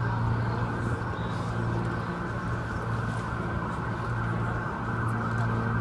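Police siren switching from a slow falling wail into a rapid yelp, over a steady low engine hum.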